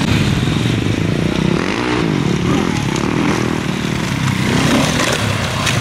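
Enduro dirt bike engine revving hard, its pitch rising and falling several times as the throttle is worked.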